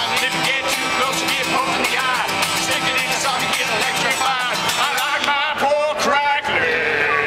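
Live acoustic steel-string guitar strummed while two men sing a roots-style song. A long steady note comes in near the end.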